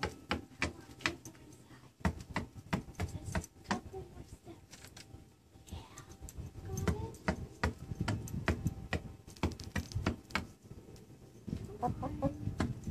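Silver-laced Wyandotte hen pecking at the wooden floor of the coop, a quick irregular run of sharp beak taps, with a few short low clucks around the middle and near the end.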